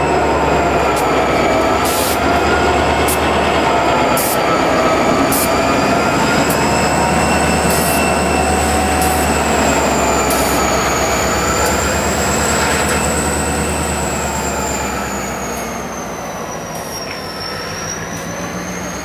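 A railroad snow plow train passing close by: the diesel locomotive's engine rumbles while steel wheels squeal in several high, wavering tones, with a few irregular clanks. The rumble fades about fifteen seconds in as the locomotive moves away, and the squeal goes on.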